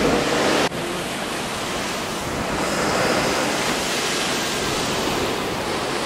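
Steady rush of a waterfall's falling water, with a brief dropout under a second in.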